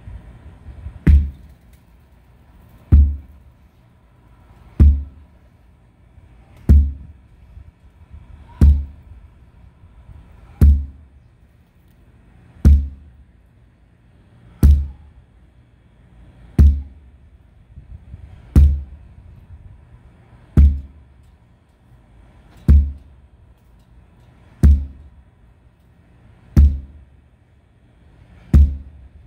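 Sledgehammer striking a large rubber tractor tire, over and over at an even pace. Each blow is a deep thud with a sharp crack on top, fifteen blows about two seconds apart.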